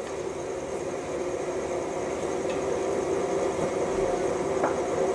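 A steady, low mechanical hum, with a faint short knock about four and a half seconds in.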